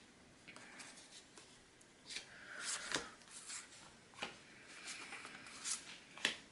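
Sticker sheets and paper being handled: soft rustling and sliding, with a few light, sharp taps scattered through.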